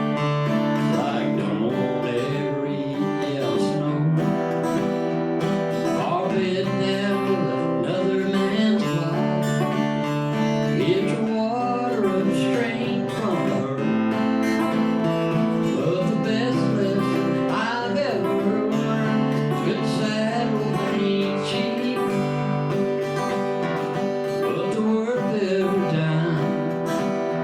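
Live country song on a strummed acoustic guitar, with a man singing over it.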